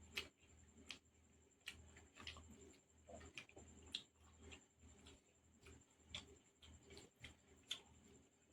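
Quiet eating sounds: soft, sharp mouth clicks and smacks while chewing, coming irregularly about once or twice a second.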